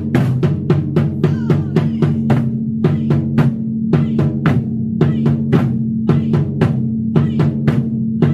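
A group of taiko drums struck together with wooden bachi sticks in a steady, driving rhythm of about three to four loud strikes a second.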